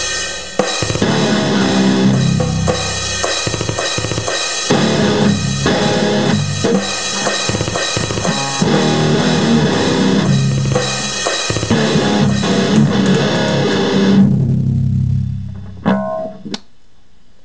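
Instrumental band track with drum kit and guitar playing loud. About fourteen seconds in the band stops and the sound dies away over a couple of seconds, with a short burst of sound shortly after.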